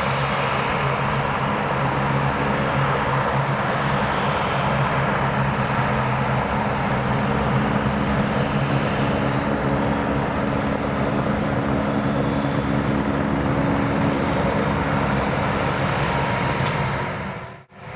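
Jet airliner engines running at steady power: a loud, continuous rush with a steady low hum. The sound drops out briefly near the end.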